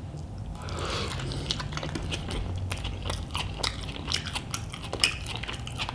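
Close-up chewing of a mouthful of cheesy chicken burrito, with many small wet mouth clicks and smacks.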